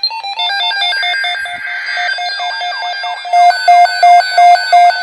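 Weather radio alert alarm going off, marking a newly issued severe thunderstorm watch: several overlapping electronic beep patterns and chirps. About three seconds in, a loud, steady beep at about three a second takes over.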